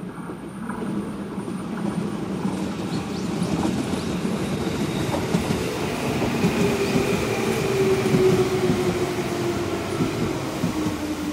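JR West 205 series electric commuter train running past close by and slowing into a station. Its wheels clatter over the rail joints, a running tone falls slowly in pitch as it slows, and a thin high squeal joins in about halfway through. The sound grows louder to a peak about eight seconds in.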